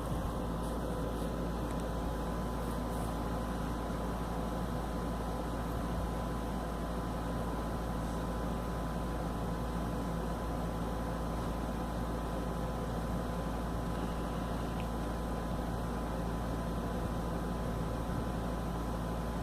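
A steady hum and hiss with a constant thin high tone, even and unchanging, with no coughs or other distinct sounds.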